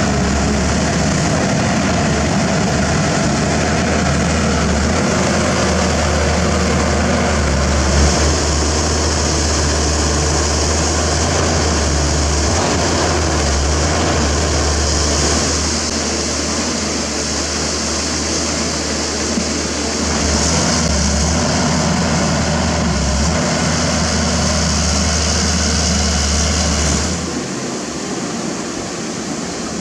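Pindad Excava 200 excavator's Deutz six-cylinder turbo-diesel engine running steadily under working load, with a steady high hiss above it. The engine's low drone drops away near the end.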